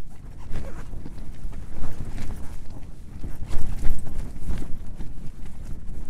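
Strong wind battering a tent, heard from inside: the tent fabric flaps and snaps in irregular strokes over a constant low rumble of wind.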